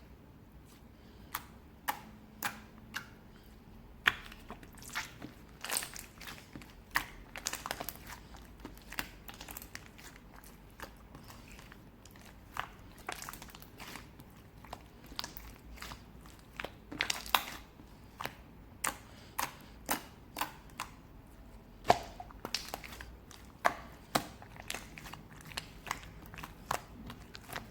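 Someone biting and chewing crunchy food up close: irregular sharp crunches, roughly one or two a second, with softer chewing in between.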